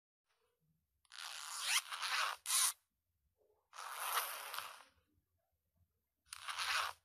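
A zipper being pulled open and closed: four pulls, a long one followed at once by a short one, then two more a couple of seconds apart.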